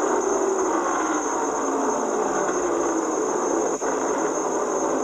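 Race trucks' V8 engines running at full speed as the pack goes by, their note sliding slowly down in pitch. A brief click and dropout about four seconds in.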